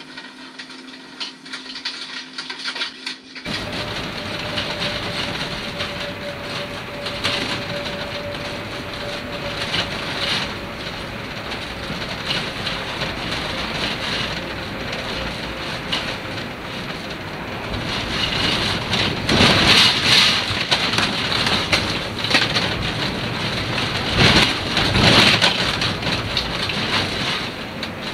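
Inside a travel trailer being towed down the road: steady road noise with cabinets, fixtures and loose contents rattling and clattering, starting a few seconds in. The rattling surges louder twice, about two-thirds of the way through and again a few seconds later.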